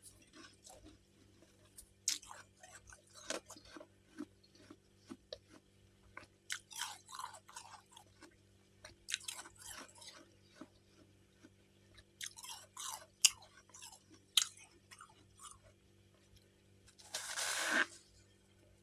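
Close-up biting, crunching and chewing of freezer frost chunks. The crunches come in bursts of bites with short pauses between, and a longer crunch near the end.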